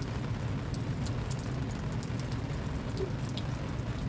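Heavy rain falling steadily: an even hiss with a low rumble, dotted with scattered sharp little ticks.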